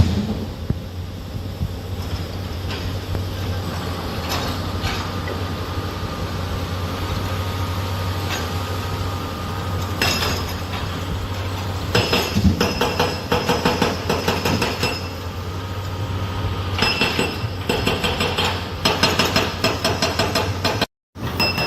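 Heavy machine's diesel engine running steadily, with bursts of rapid metallic clanking and clinking of steel parts at work. The sound cuts out for a moment near the end.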